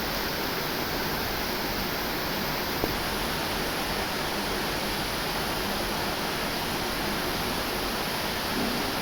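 Heavy rain falling, a steady even hiss, with one brief click about three seconds in.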